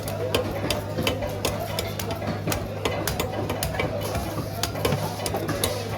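Sharp, irregular knocks, two or three a second, of a blade chopping a large ayer catfish, over background chatter and a steady low hum.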